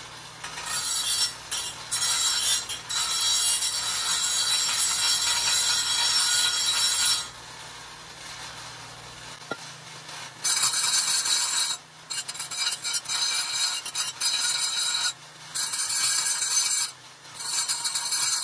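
Angle grinder with an abrasive cutoff wheel, mounted in a chop-saw stand, cutting steel pipe with a loud grinding noise. After about seven seconds the cut stops and the wheel spins down. A few seconds later cutting resumes in several passes with short breaks.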